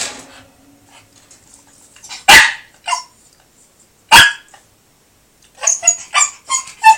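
Shiba Inu barking: two sharp, loud barks about two seconds apart, then a quick run of short yips near the end, a dog asking a cat to play.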